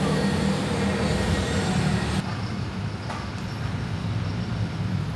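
Steady city traffic noise: a low engine rumble with road hiss from heavy traffic. About two seconds in, the higher hiss drops away abruptly.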